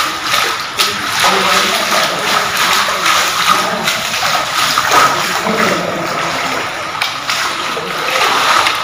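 Rainwater running and splashing across a flooded floor, a continuous wash of water noise.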